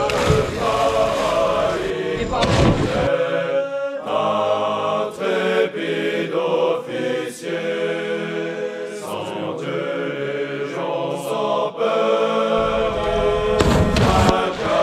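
A choir singing a chant, with sustained notes changing about every second. A rush of noise and a splash of water come over it at the start and again near the end.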